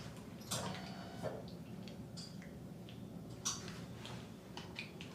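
Scattered sharp clicks and light handling noises, with a brief squeak just after the first click. The loudest click comes about three and a half seconds in.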